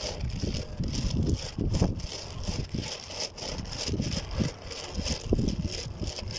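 Wind buffeting the microphone in uneven gusts, over faint scraping of sand being scooped into a sack.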